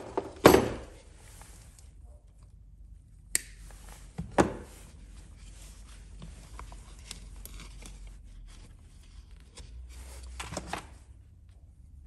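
Hands working on the compressor's switch wiring: a loud knock about half a second in, a sharp click a few seconds later and another knock soon after, then small clicks and rustles of wires and tools being handled.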